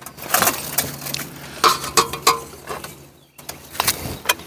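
Irregular metallic clinks and knocks of steel plate armor and a titanium buckler being handled and set down on a wooden table, with a few louder knocks among lighter taps.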